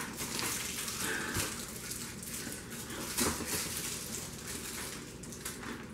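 Small plastic wrappers of hard candies crinkling as they are torn open and unwrapped, in short scattered crackles.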